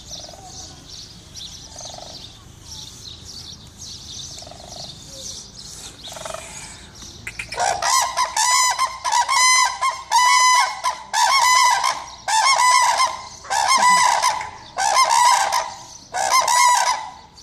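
Crane calling: about a dozen loud calls in quick succession, starting about seven and a half seconds in, each under a second long and less than a second apart.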